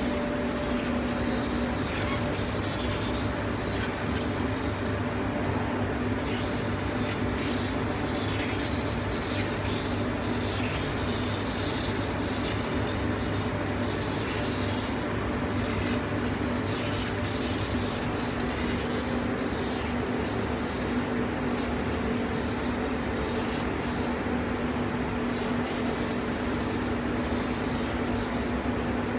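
A Golden Laser vision laser cutting machine running as it cuts printed fabric: a steady mechanical hum with a constant low tone.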